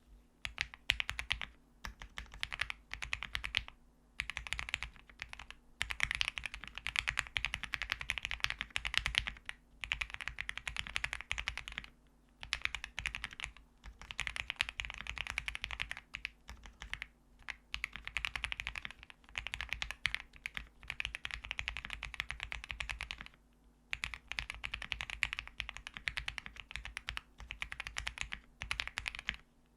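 Fast typing on an Owlab Link65 mechanical keyboard with lubed, filmed Gateron Ink Black linear switches on an FR4 plate and GMK keycaps: dense runs of key clacks in bursts of a second or two, broken by short pauses.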